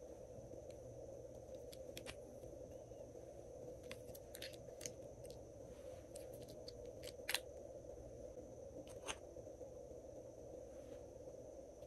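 Sparse, faint clicks and ticks from small polymer-clay flower slices being handled and dropped onto slime in a glass tray, the two sharpest about seven and nine seconds in, over a steady low hum.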